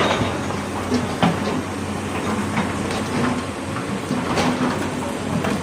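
Excavator working: a diesel engine running steadily under a low hum, with irregular metallic clanks and knocks.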